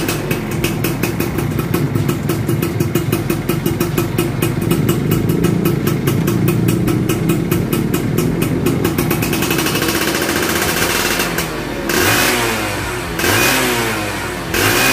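Yamaha F1ZR's two-stroke single-cylinder engine breathing through an AHM (Ampang Hoong Motor) exhaust, idling steadily, then revved in three short blips near the end.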